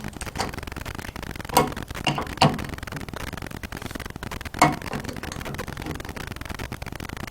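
A crescent wrench clicking against the faucet valve's nut as it is tightened on the threaded valve body, four sharp clinks spread over a few seconds.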